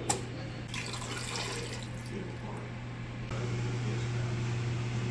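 Water running or pouring, over a steady electric hum. A sharp click comes just at the start, and the hum grows louder about three seconds in.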